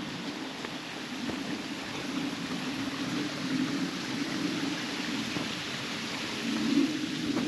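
Running water of a stream, a steady rush with a low, wavering undertone.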